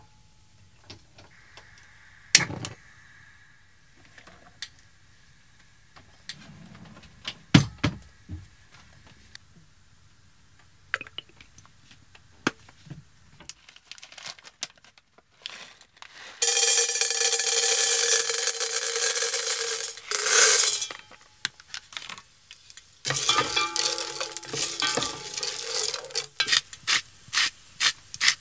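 Dry popcorn kernels poured into an enamel pot, rattling loudly with the pot ringing for a few seconds. Then a wooden spoon stirs the kernels around the pot in quick scraping strokes, about two to three a second. Light clicks and knocks of kitchen handling come earlier.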